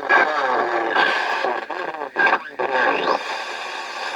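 Knight-Kit R-100 shortwave receiver playing through its speaker: garbled snatches of broadcast speech under a steady whistling tone. The signal drops out briefly a couple of times around the middle.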